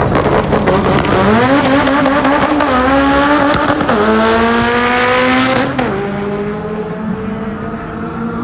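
Race car engine accelerating hard through the gears. The revs climb and drop sharply at three quick upshifts, then settle lower and a little quieter.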